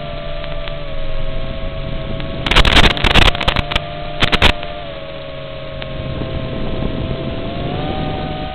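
Furibee X215 Pro quadcopter's brushless motors and propellers whining at a fairly steady pitch, heard over its onboard camera's noisy audio link. The pitch rises slightly near the end. From about two and a half to four and a half seconds in, loud crackling bursts cut through.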